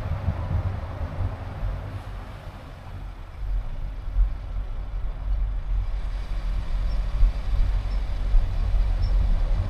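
Low, steady rumble of a car being driven, growing louder about a third of the way in.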